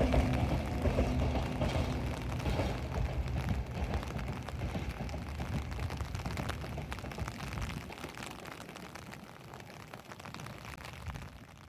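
Tobu 10000 series electric train running away from the listener, its low rumble and rail noise with fine clicks fading steadily into the distance.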